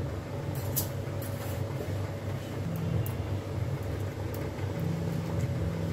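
Steady low hum and rumble, with a few faint, brief ticks over it.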